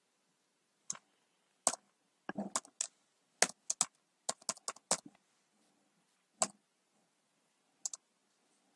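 Computer keyboard keys being typed: sharp separate key clicks, a quick run of them in the middle, then a few spaced strokes near the end.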